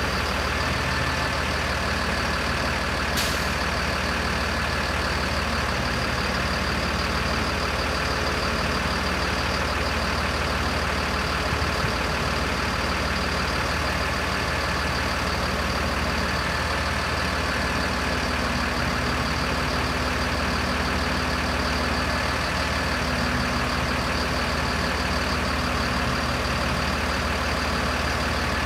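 Diesel engine of a 2007 Freightliner M2 bucket truck idling steadily while the Lift-All aerial boom is worked, with a thin whine that comes and goes and a single click about three seconds in.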